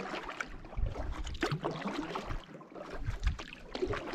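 Canoe being paddled across calm water: irregular splashes and trickles from the paddle and water running along the hull.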